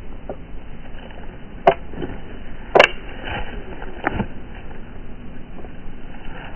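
Two sharp revolver shots about a second apart, slowed down, each trailing off into a falling ring, then a softer knock about a second after the second shot.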